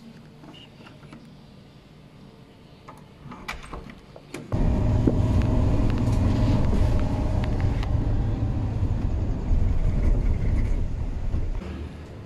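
A few light clicks of a room door being pulled shut. Then, about a third of the way in, a van's steady low engine and road rumble, heard from inside the cabin, starts suddenly and drops away near the end.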